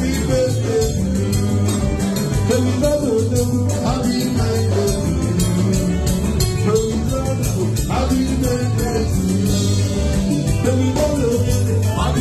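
Live band music: a singer over electric guitar, bass and a steady drum beat.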